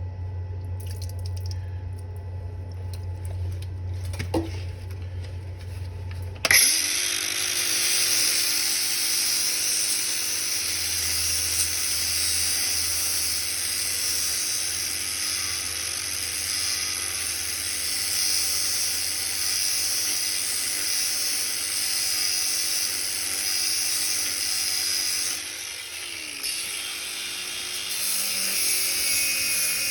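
Power grinder starting about six seconds in and grinding the steel cutting teeth of a drum mulcher: a steady motor whine with a harsh, hissing grind. The grinding eases off briefly near the end and then picks up again. A low hum comes before it.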